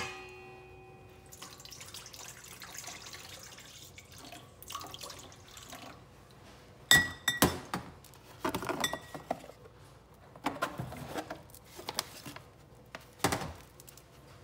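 A glass mason jar and a stainless steel mixing bowl being handled: a sharp clink that rings briefly, a few seconds of soft liquid pouring, then several hard knocks and clinks of the glass jar, the loudest about seven seconds in, as it is moved and set down on the counter.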